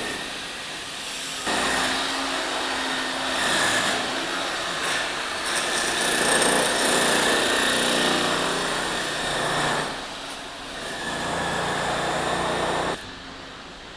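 A power tool running loudly, starting abruptly about a second and a half in, dipping briefly, then cutting off about a second before the end.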